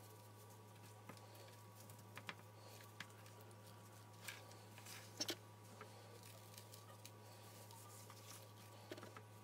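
Faint soft pats and squishes of a gloved hand rubbing dry spice rub into raw chicken breasts, with a few light ticks scattered through, over a low steady hum.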